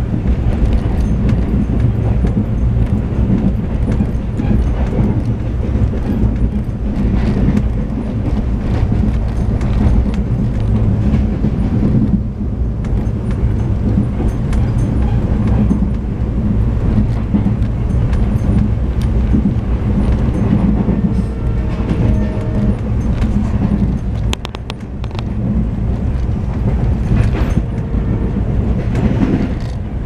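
Inside a sealed air-conditioned passenger coach running at about 90 km/h, the wheels on the rails make a steady low rumble with repeated clicks from rail joints. A thicker run of clicks comes about 24 to 26 seconds in, as the coach runs over points. The horn of the EMD WDP4 diesel locomotive ahead sounds briefly about two-thirds of the way through.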